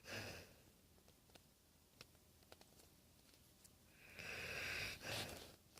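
Pit bull snoring in its sleep: a short breath noise at the very start, then a long snore about four seconds in, followed at once by a shorter one.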